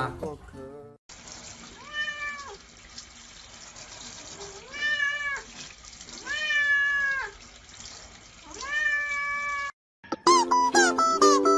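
A cat meowing four times, each a drawn-out meow that rises and then falls. About ten seconds in, louder plucked-string music starts.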